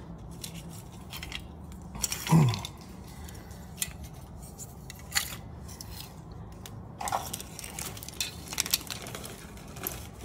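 Small hard plastic toy parts clicking and clattering as they are picked up, shuffled and set down on a concrete floor, in scattered light knocks. About two seconds in, a brief louder sound slides down in pitch.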